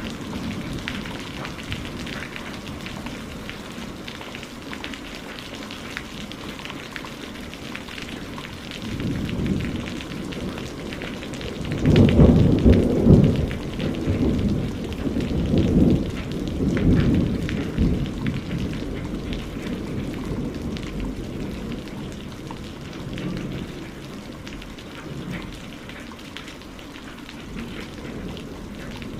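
Rain falling steadily, with thunder rolling in low rumbles, loudest about twelve seconds in and again a few seconds later.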